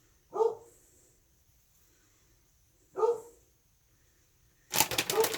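A dog barking: two single short barks about two and a half seconds apart. Near the end a loud crinkling starts, like a plastic bag being handled.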